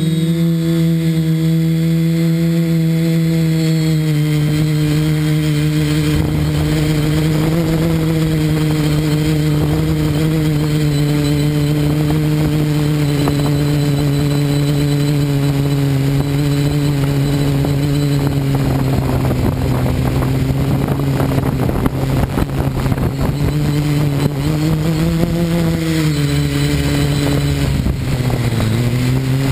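Multirotor drone's electric motors and propellers, heard from the camera mounted on the frame: a loud, steady droning hum. In the second half gusty rushing noise from the prop wash or wind joins in, and near the end the pitch sags and then rises again as the throttle changes low over the ground.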